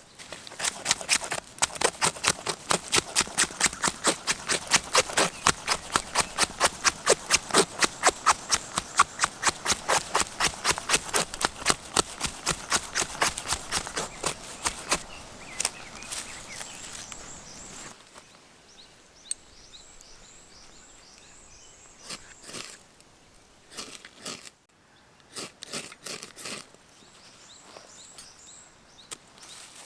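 Knife chopping on a cutting board in a quick, even rhythm of about four strokes a second, slowing and stopping about halfway through; a few scattered taps follow.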